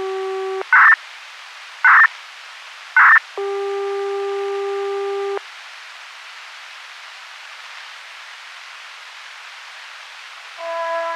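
Control-signal tones of a Japanese municipal disaster-prevention radio broadcast, heard through a radio receiver. A steady buzzy tone cuts off, three short loud noisy bursts come about a second apart, then another steady tone lasts about two seconds. Radio hiss follows, and the chime melody begins near the end.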